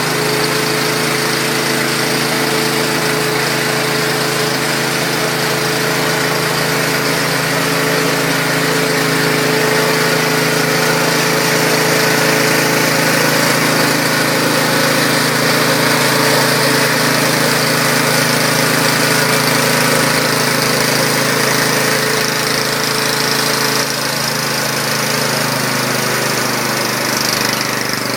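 Honda portable generator's engine, converted to run on a water and gasoline or propane mix through an add-on reactor instead of a carburettor, running steadily at a constant speed.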